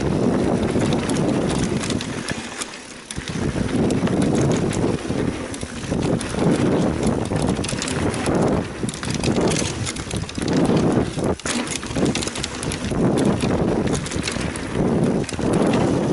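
Mountain bike riding down a dirt trail: the tyres rumble over the ground, surging and easing every second or two, with many sharp rattles and knocks from the bike as it goes over rough ground, and wind on the microphone.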